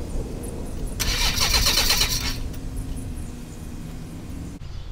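Beechcraft Musketeer's electric starter briefly cranking the engine for about a second with an even, rapid beat, followed by a lower steady hum. The fuel tanks are empty, so the engine turns over without firing.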